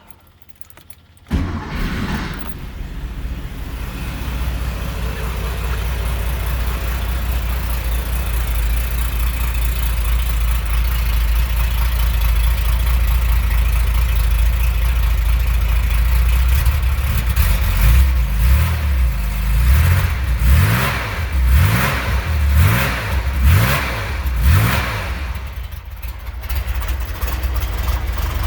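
1968 Porsche 911's air-cooled flat-six starting from dead cold with no choke, catching about a second in and then running steadily. Past the halfway point it is blipped through a string of about eight quick revs, then settles back to idle.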